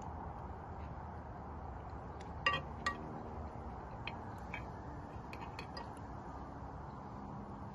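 A spoon clinking against dishes while eating: two louder clinks about two and a half seconds in, then a run of lighter taps as food is scooped from the plate and bowl.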